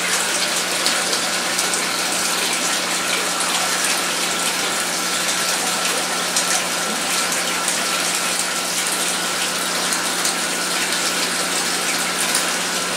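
Aquarium pump and filter running: a steady rush of moving water over a constant low hum.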